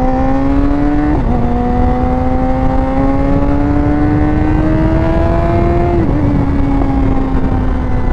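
2019 BMW S1000R's inline-four engine through an Akrapovic exhaust, pulling under acceleration with its pitch slowly climbing. The pitch drops sharply about a second in as it shifts up, climbs again, then dips and eases slightly from about six seconds in, with wind rush underneath.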